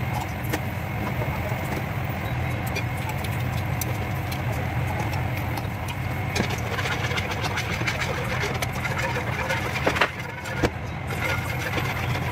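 Sauce heating and starting to bubble in a stainless steel frying pan on an induction cooktop, over a steady low hum. Light clicks and crackles come and go, more of them from about halfway through.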